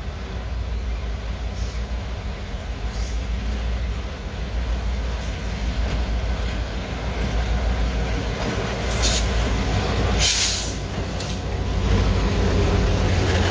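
CN diesel locomotives leading a freight train, their engines running with a steady low rumble that grows louder as they approach and pass close by. Two short bursts of hiss come about two-thirds of the way through.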